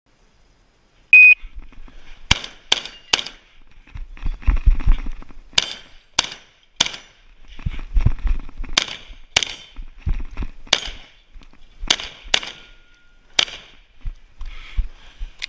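A shot timer's start beep, then about a dozen shotgun shots fired in quick pairs and threes as the shooter engages targets, with rustling and handling noise between the strings.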